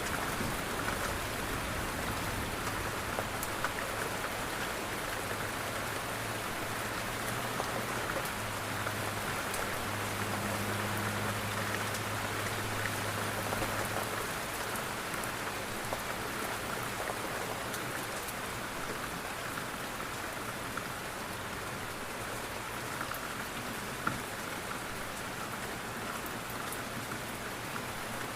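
Steady rain pattering on a window pane, with scattered sharper drop ticks. A faint low rumble sits underneath and fades out about halfway through.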